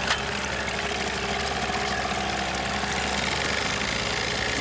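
Outboard motor of an inflatable boat idling with a steady hum, with one short click just after the start.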